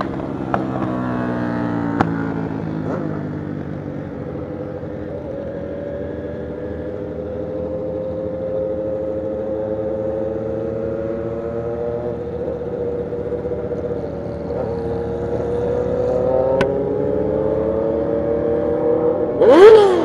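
Motorcycle engine running while riding, heard from the bike itself: the pitch falls over the first few seconds, holds steady, then climbs again later on, with a brief loud rev just before the end.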